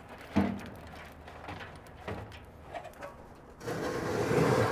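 Lit charcoal tipped out of a metal chimney starter into a charcoal grill: a metal clank about half a second in, scattered small clicks of coals, then a louder grating stretch lasting about a second near the end.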